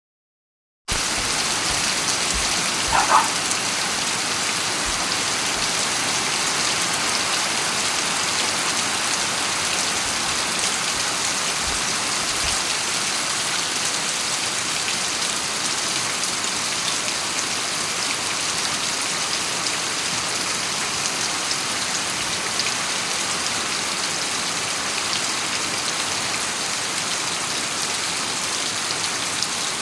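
Steady rain falling on a road, an even hiss of drops that begins about a second in. A brief louder, pitched sound cuts through about three seconds in.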